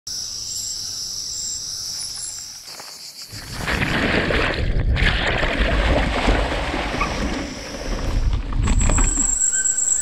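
Insects buzzing in a high, steady drone, covered from about three seconds in by a louder broad rushing noise.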